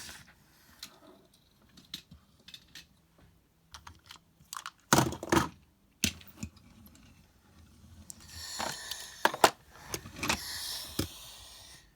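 Irregular light clicks and knocks, a few of them sharper, with a stretch of rustling hiss toward the end.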